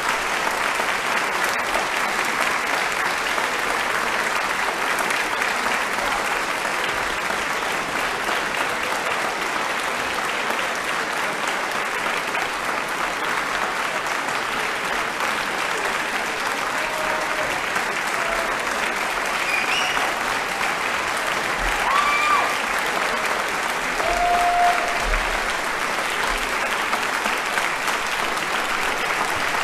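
Audience in a concert hall applauding steadily.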